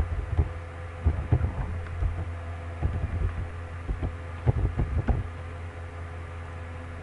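Computer keyboard typing: irregular key clicks that stop a little after five seconds in, over a steady low electrical hum.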